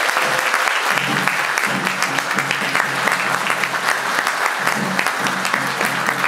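Audience applauding steadily, with a low steady hum underneath from about a second in.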